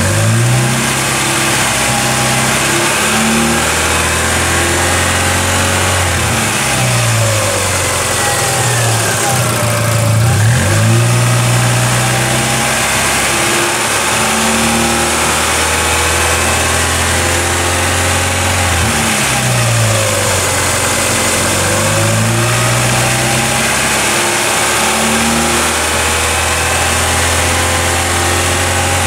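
Chevrolet Cruze 1.6-litre F16D3 (E-TEC II 16V) four-cylinder petrol engine running at raised revs, its pitch dropping and climbing back several times as the throttle is eased and reopened.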